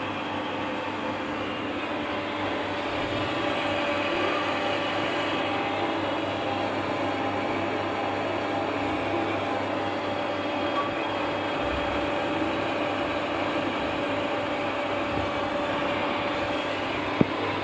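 Calpeda electric water pump running with a steady hum, which the owner says will not build pressure even with the water shut off. A single sharp click near the end.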